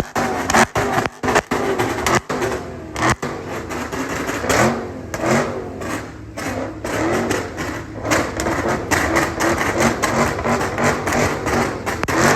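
SRT performance car's engine and exhaust running and being revved, the pitch rising and falling again and again.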